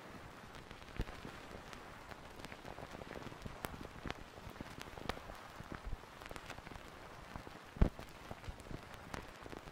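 Soft, irregular ticks and crackles over a steady hiss, with one sharper thump near the end.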